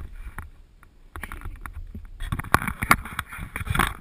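Rustling and many sharp knocks and clicks close to the microphone: handling noise as the helmet-mounted action camera is moved about and taken in hand. The noise thickens from about two seconds in.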